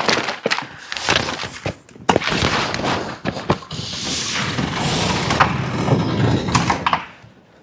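Metal roll-up door being worked open: a few knocks and clanks, then a continuous metal rattle lasting about five seconds that stops suddenly near the end.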